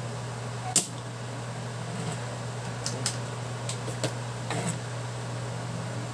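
Small hand tools clicking and tapping at an ECU circuit board during soldering work: one sharp click about a second in, then a few lighter clicks and taps, over a steady low hum.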